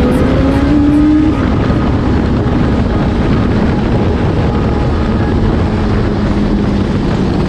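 Sport motorcycle engine heard from the rider's seat, its pitch rising for about the first second as the bike accelerates, then running steadily, with heavy wind noise on the microphone.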